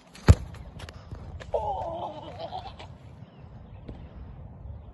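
A football struck hard with one sharp thump, then a drawn-out, wavering vocal cry lasting about a second.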